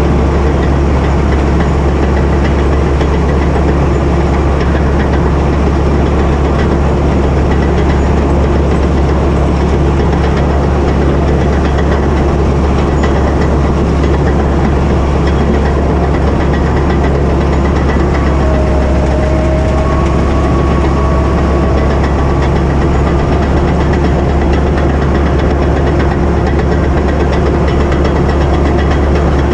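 Caterpillar D8K crawler dozer's six-cylinder diesel engine running steadily with a deep, even drone heard close to the machine. A faint wavering whine comes and goes about two-thirds of the way through.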